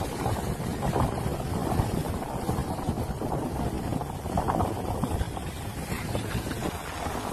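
Steady wind noise on the microphone, mixed with the hiss of skis sliding over snow.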